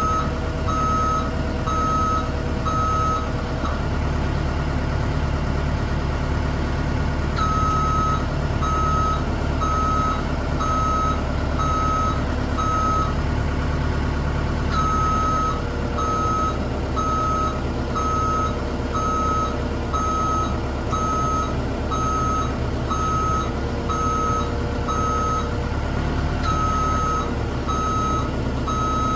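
A Bobcat E50 mini excavator's diesel engine running while its travel alarm beeps steadily, a little more than once a second. The machine is driving its newly fitted final drive forwards and backwards with the track off. The beeping stops twice for a few seconds, about four seconds in and around the middle, when travel pauses.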